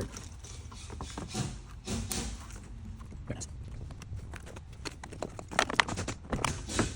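Irregular light knocks and clicks of parts being handled and fitted on the van's door, more frequent toward the end.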